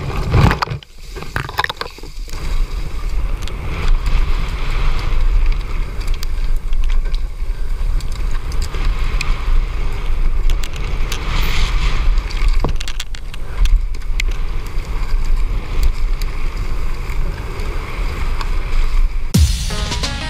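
On-board sound of a mountain bike descending a dirt woodland trail: a steady rumble of tyres and wind on the helmet-mounted camera, with frequent short clatters and knocks from the bike over bumps. Music comes in near the end.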